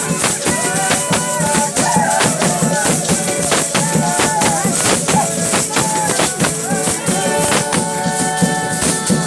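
Folia group music: a fast, steady beat of tambourine and shaker under held melodic notes.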